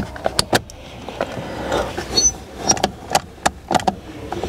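Irregular plastic clicks and knocks as a headlight combination switch stalk with a fog light switch is slid and seated into its housing on the steering column.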